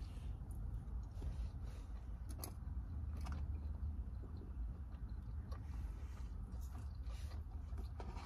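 Quiet eating: a person chewing food, with faint scattered clicks from a plastic fork against a paper takeout box, over a low steady rumble.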